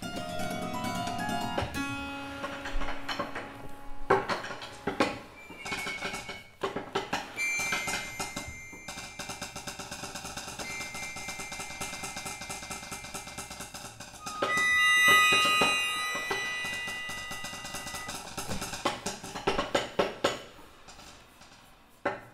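Improvised contemporary music for two cellos, piano and accordion: scattered taps, knocks and plucked, percussive sounds under held high tones that swell about halfway through and thin out near the end.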